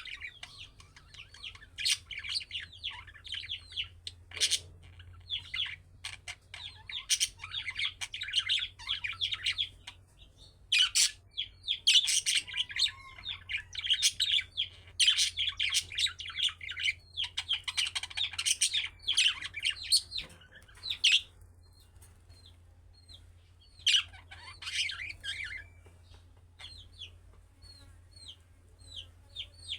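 Budgerigars chirping and warbling in dense, overlapping bouts, with sparser single short chirps near the end. A faint steady low hum runs underneath.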